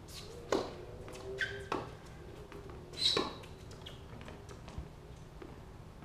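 Tennis ball struck by racquets and bouncing on a hard court during a doubles rally: a few sharp pops, the first about half a second in and the loudest about three seconds in, over a low steady hum.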